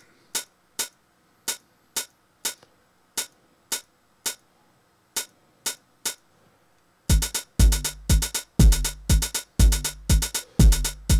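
Sampled 909 open hi-hat in the Hydrogen drum machine, sounding once each time a note is clicked into the pattern: about a dozen single, unevenly spaced hits. About seven seconds in, the drum pattern starts playing back at 120 BPM: a louder, fast groove of kick drum and hi-hats.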